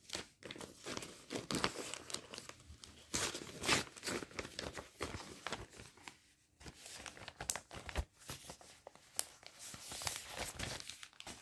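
Paper pattern sheets and plastic kit packaging rustling and crinkling as they are handled, in irregular rustles and crackles with a short lull about six and a half seconds in.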